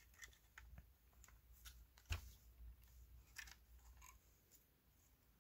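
Near silence with faint scattered clicks and taps from the mini projector's circuit board and plastic shell being handled, and one sharper click about two seconds in.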